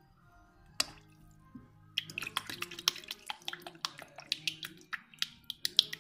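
Water splashing and dripping in a shallow tub: one small splash about a second in, then from about two seconds in a quick, irregular run of small splashes and drips.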